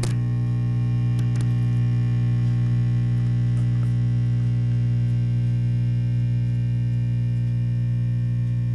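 Silvertone Model 6050 tube radio's speaker putting out a steady mains hum with no station audible, with a couple of faint clicks near the start. The hum is the sign of failing filter capacitors, which the restorer judges likely toast.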